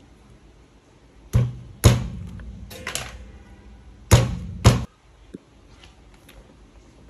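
Sharp plastic clicks and knocks from a Braun hand blender being handled, in two clusters about a second and about four seconds in, each with a brief low hum after the knocks.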